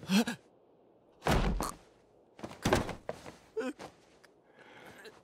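Two dull, heavy thuds about a second and a half apart, with a brief grunt just before them and short vocal sounds after the second.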